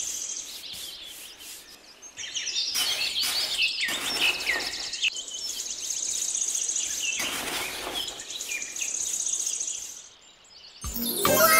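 Birds chirping over a high, rapid insect-like trill that comes and goes, with a few bursts of rustling noise; the ambience drops away about ten seconds in and music begins near the end.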